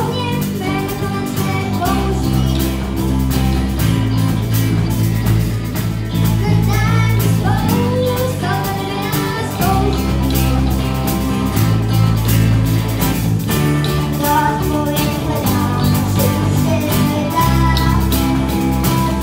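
A boy singing lead vocal in Czech over a live rock band: drum kit, bass guitar, electric guitar and acoustic guitar playing a steady beat.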